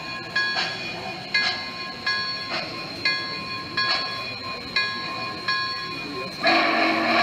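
Sound system of a model Western Maryland H-9 Consolidation steam locomotive ringing its bell, struck about every three-quarters of a second. A steam whistle blows near the end.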